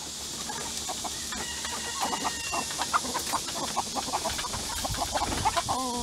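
A flock of hens clucking in a wire pen: many short, scattered clucks. Near the end a longer, wavering call sets in.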